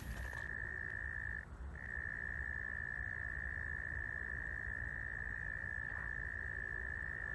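A steady high-pitched trill from a night-calling animal, one unbroken note except for a brief pause about a second and a half in, over a low rumble.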